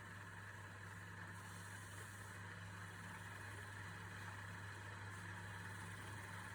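Steady low electrical hum with a faint even hiss above it.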